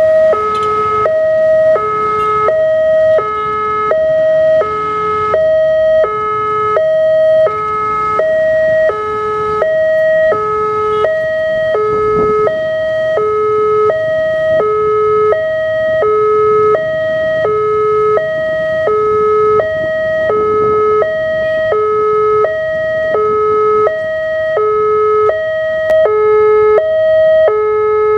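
Railway level-crossing warning alarm sounding its electronic two-tone chime, a higher note then a lower note, repeating about once a second. It signals that the barriers are down for an approaching train.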